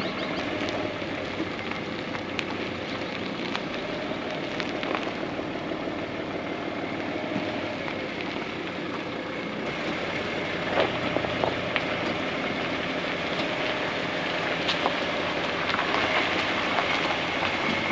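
Tyres of a car towing a caravan rolling slowly over a gravel driveway: a steady crunching with scattered ticks and pops of small stones.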